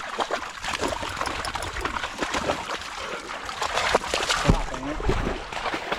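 Water splashing and dripping from a retrieving dog just out of the water, with many small splatters. There is a low thump about four and a half seconds in.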